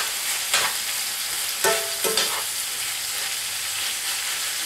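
Pork and cabbage filling sizzling in a cast iron skillet as a metal spoon stirs it, with a few short scrapes and knocks of the spoon against the pan in the first half.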